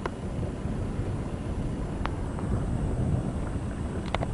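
Wind rumbling on the microphone, with a few faint short high pings: one near the start, one about two seconds in and a pair near the end.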